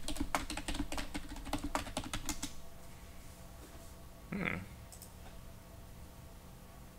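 Fast typing on a computer keyboard: a quick run of keystrokes lasting about two and a half seconds, while a search query is typed. A brief voice-like sound follows a couple of seconds later.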